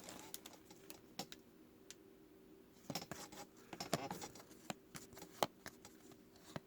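Trading cards being handled and sorted: faint, irregular light clicks and taps a second or so apart, over a faint steady hum.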